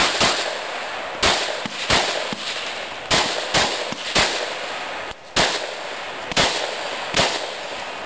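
Semi-automatic pistol firing a rapid string of about a dozen shots, roughly one every half second to second, each crack followed by a short echo across the range.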